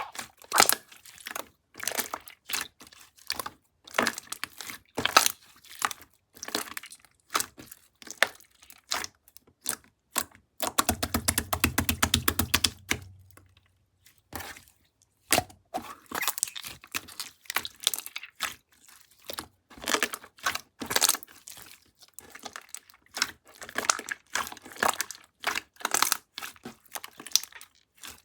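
Close crinkling and crackling sounds made of many sharp, irregular clicks in bursts, with a quick run of rapid ticks over a low buzz about eleven seconds in.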